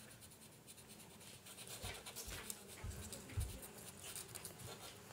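Black felt-tip marker scratching quickly back and forth on paper as a small patch is filled in, faint, with a couple of soft low thumps near the middle.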